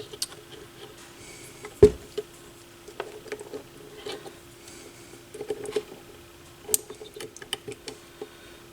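Small metal clicks, ticks and scrapes of a tool working at a stubborn retaining clip on the bottom of a Technics SL-B202 turntable's spindle shaft, with one sharp knock about two seconds in. A faint steady hum runs underneath.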